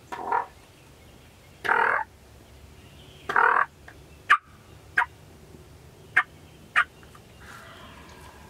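Wild turkey gobbler gobbling three times in the first few seconds, each a short rattling burst. Four short, sharp single notes follow.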